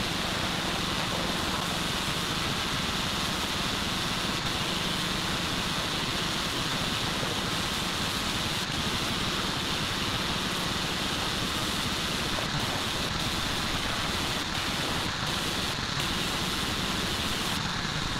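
Pressure washer jet spraying water into a 1972 Chrysler New Yorker's engine bay: a steady hiss with a low hum underneath. The spray cuts off near the end.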